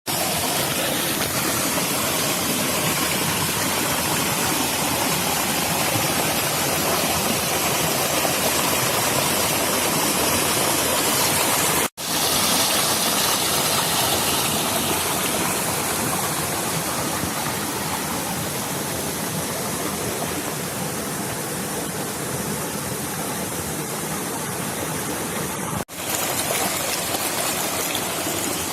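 Waterfall and stream water rushing in a steady, loud noise, cut off for an instant twice where the clip is edited.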